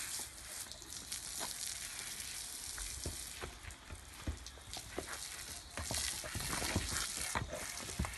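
Water spraying from a garden hose nozzle onto a horse's coat: a steady hiss of spray, with scattered small taps and spatters.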